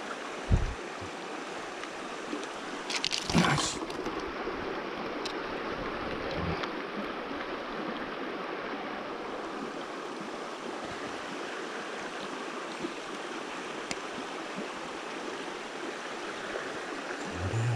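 Mountain stream water rushing steadily, with a sharp thump about half a second in and a brief, louder noisy burst about three seconds in.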